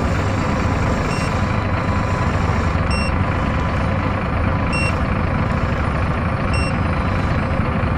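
Truck engine running steadily with a low rumble, while a reversing alarm gives four short beeps about two seconds apart.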